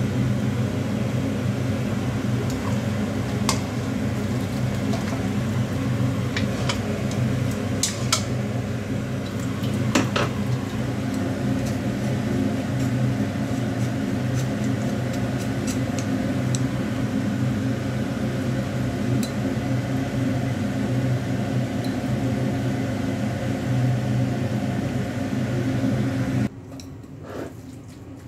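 A kitchen fan running with a steady hum that cuts off suddenly near the end. Several light clinks of utensils against dishes come in the first ten seconds.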